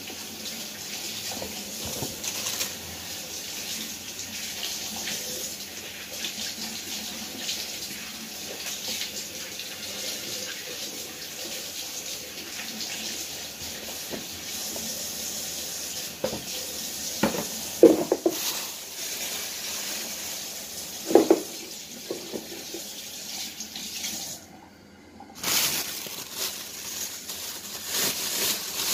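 Kitchen tap running into a sink as corn cobs are rinsed by hand over a plastic colander, with a few sharp knocks about two-thirds of the way through. Near the end, a plastic bag crinkles.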